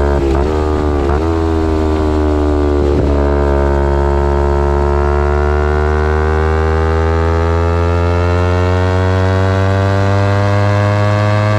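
2011 Kawasaki Ninja 250R SE parallel-twin engine running through a full Graves race exhaust under way. The engine note dips briefly three times in the first three seconds, then rises slowly and steadily as the bike pulls.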